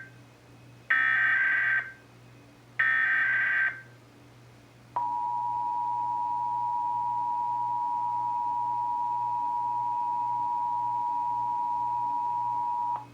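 Emergency Alert System SAME header: the end of one digital data burst, then two more buzzy bursts of about a second each, a second apart. About five seconds in, the EAS two-tone attention signal (853 Hz and 960 Hz sounded together) starts and holds steady for about eight seconds, then cuts off suddenly.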